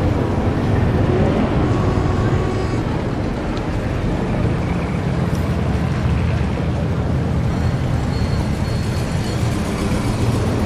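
Sound-effect ambience of a 1920s city street: a steady low rumble of motor traffic with a faint murmur of voices.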